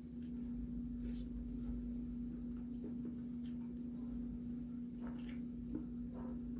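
Soft mouth sounds of eating chicken feet by hand: chewing and sucking on fingers, with a few faint wet clicks, over a steady low hum.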